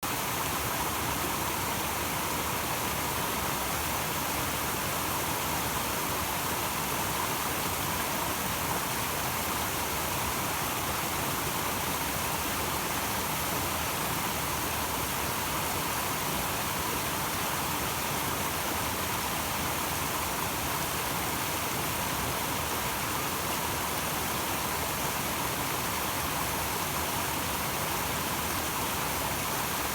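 Small mountain waterfall cascading over boulders, a steady rush of falling water.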